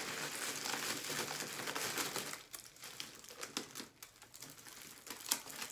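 Plastic packaging crinkling as lash cases in plastic bags are handled and pulled out. A dense crackle for about two seconds, then sparser crackles and clicks, with one sharp click near the end.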